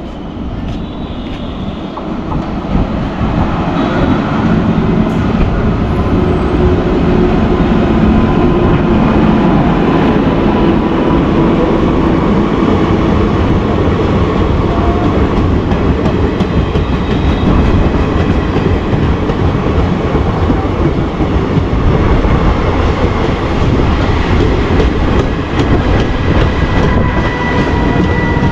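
Express train of ICF passenger coaches passing at speed on the nearest track. It grows louder over the first several seconds as it comes in, then holds as a steady rush of wheel and rail noise while the coaches stream by.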